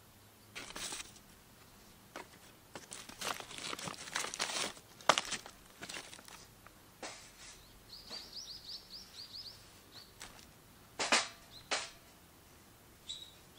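Dry twigs crackling and clicking as they are handled and laid across a steel fire pit, with two sharp clacks near the end. Midway, a bird calls in a quick run of high chirps.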